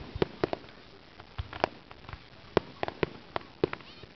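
Aerial fireworks bursting: an irregular run of sharp cracks and pops, several close together at first, then a short lull, then more scattered cracks to the end.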